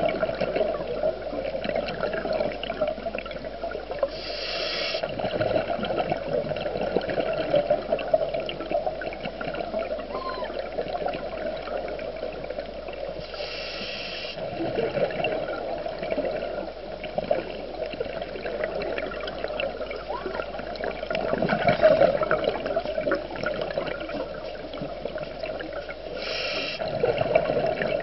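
Muffled underwater noise heard through a camera's waterproof housing, with a few short gurgling bursts of exhaled bubbles from a scuba regulator several seconds apart.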